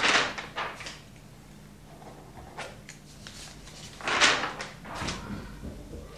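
Several short scraping, rustling noises of things being handled, the loudest at the start and about four seconds in.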